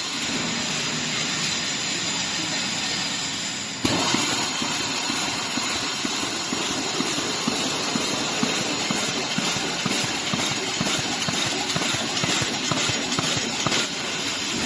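Pneumatic wire mesh welding machine running: a steady hiss of air with a dense, uneven run of short knocks from the air-cylinder-driven welding electrodes. The sound steps up suddenly and gets louder about four seconds in.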